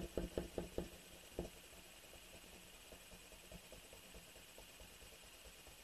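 Yellow colored pencil scribbling hard back and forth on paper, about five strokes a second. After about a second it drops to one last stroke, then faint hiss.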